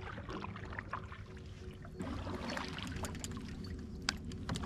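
Kayak paddle strokes in shallow water, with water splashing and dripping off the blade. The strokes grow louder about two seconds in.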